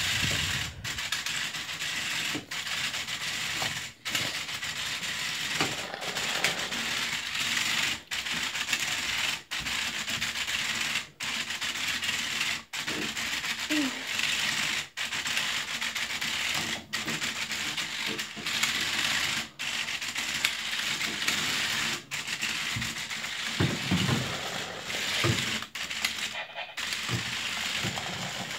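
WowWee CHiP robot dog's drive motors whirring in a steady hiss as it rolls on a hard floor, breaking off briefly every second or two. A few short electronic chirps come from the robot now and then.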